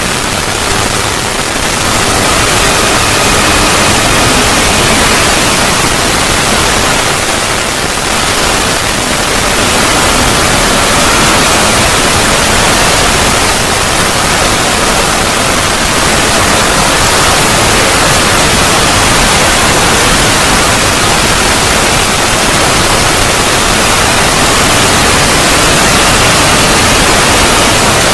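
Loud, steady wash of harsh static-like white noise: an extended 'void' logo sound effect, with faint high tones showing through the hiss.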